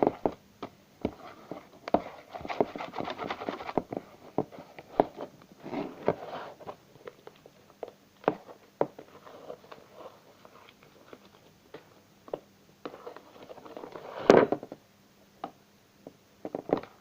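Homemade glue slime being kneaded and squeezed by hand: irregular wet squelches and sharp little pops and clicks, with one louder squelch about fourteen seconds in.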